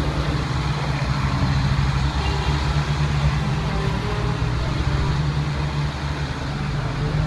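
Heavy military trucks' engines running steadily, with a constant low hum.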